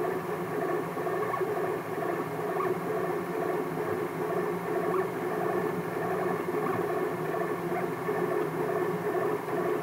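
3D printer running a print, its stepper motors whining in several steady tones at once with a rough, fluttering edge.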